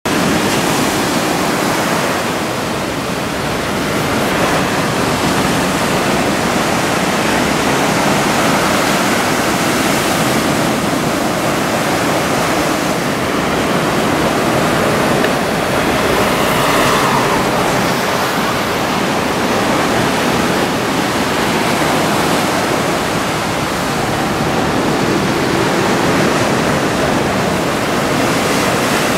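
Steady roar of big surf from a typhoon swell breaking along the shore, swelling a little louder about halfway through.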